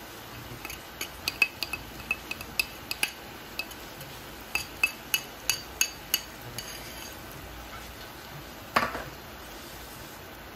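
A metal utensil clinking against dishes: a quick run of light, ringing taps for several seconds, then one louder clank near the end.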